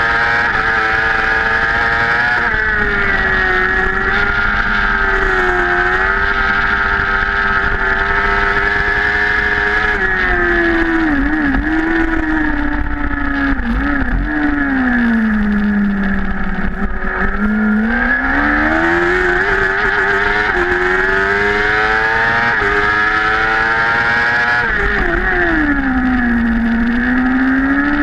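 BMW S1000RR superbike's inline-four engine heard at full race pace from a tail-mounted camera: it holds a high pitch, then falls with several short blips through downshifts into a slow corner about halfway in, and climbs again in steps as it accelerates through the gears. A second, shorter drop in pitch comes near the end.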